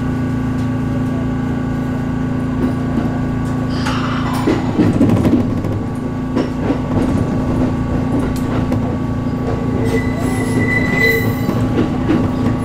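ET127 series electric train rolling slowly through yard points, heard from inside the cab. A steady low hum runs under it, a falling whine comes about four seconds in, and then the wheels clatter irregularly over the points. A brief high wheel squeal follows near the end.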